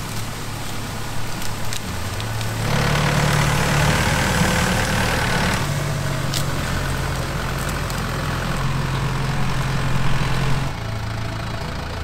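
Farm tractor engine running as the tractor drives along. About three seconds in it grows louder for about three seconds, then runs steadily, and its note drops near the end as the tractor comes to a stop.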